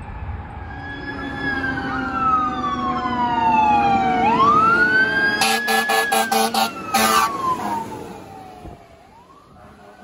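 Fire truck siren wailing as the truck approaches, its pitch sliding slowly down and then sweeping back up. Partway through, a quick run of about five short air-horn blasts is followed by one longer blast, and the siren then fades away.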